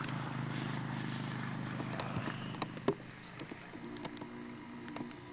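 A steady low motor hum fades away about two and a half seconds in. Scattered sharp clicks and knocks follow.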